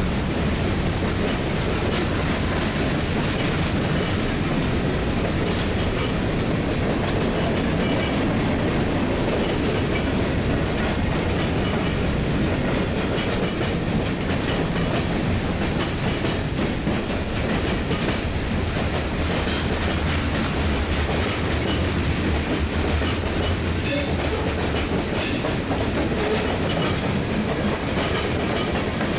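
Freight cars, boxcars and covered hoppers, rolling past close by on steel rails: a steady rumble of wheels on track, with a few sharp clicks near the end. The locomotives have already passed, so this is the cars alone.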